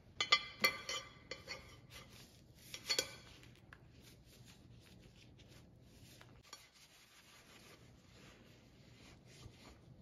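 Glass microwave turntable plate clinking and ringing briefly as it is handled, about half a second in and again around three seconds in. After that comes a faint, steady sound of a cloth rubbing over the glass.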